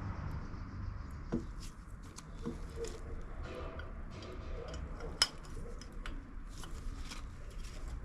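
Light handling noises of small parts, with scattered soft clicks and one sharper click about five seconds in, over a low steady room hum.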